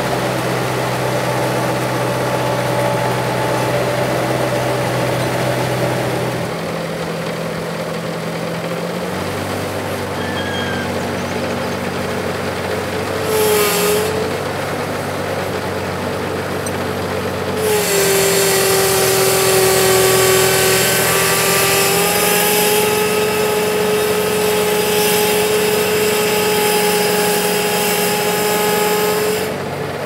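Skid-steer loader's diesel engine running, its speed stepping up and down a few times. From about 18 seconds in it runs harder and louder with a steady whine on top, dropping back just before the end.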